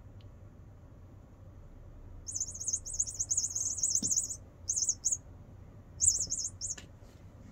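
A bird's high, fast-warbling chirps: one run of about two seconds, then two short bursts.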